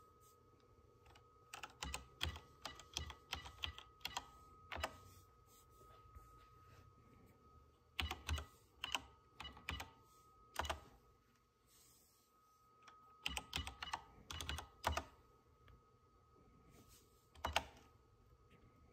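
Typing on a Wyse computer-terminal keyboard: three short bursts of key clacks, each ending in a single louder keystroke, then one more lone keystroke near the end.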